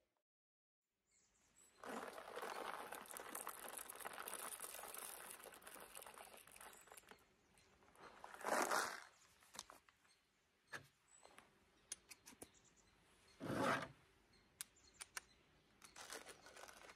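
Crinkling and rustling of a plastic stand-up pouch being handled and opened, with two louder rustles partway through and scattered sharp clicks.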